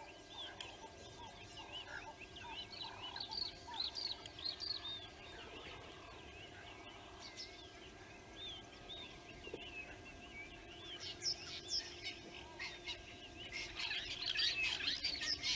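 Several wild birds calling: many short, quick chirps and whistles throughout, growing into a dense run of sharp, clicking calls near the end, over a faint steady hum.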